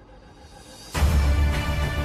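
Background music that swells faintly, then comes in loudly about a second in with a strong bass.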